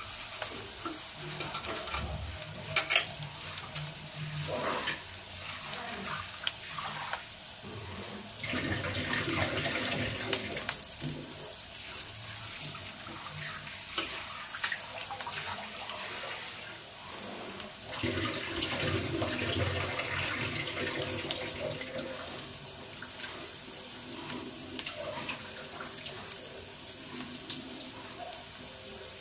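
Onions and curry leaves frying in an iron kadhai, a steady sizzle, with a sharp clink about three seconds in and two longer, louder stretches about eight and eighteen seconds in.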